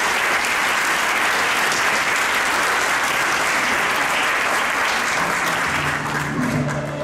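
Audience applauding, a dense steady clapping that eases off near the end as music with low held notes comes in.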